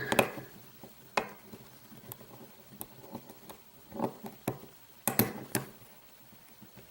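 Small metal clicks and taps from a padlock and lock picks being handled, about eight scattered knocks with a pair close together about five seconds in.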